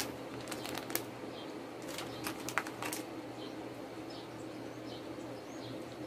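Light rustling and crinkling of a clear plastic packaging bag being handled, with a few sharp clicks.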